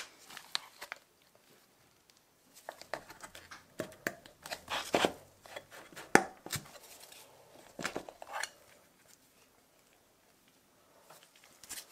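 Handling sounds: scattered light clicks, taps and knocks as a metal tin of silicone, its lid and a bottle in a plastic bag are handled on a tabletop. The sharpest knock comes about six seconds in.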